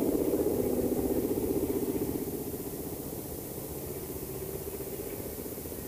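Aeroplane engine sound effect: a steady engine drone that is loudest at first and fades down after about two seconds.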